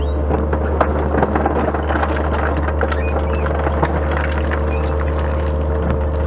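Compact loader's engine running steadily under load, with frequent knocks and clatter of dirt and stones against the steel bucket as it grades soil.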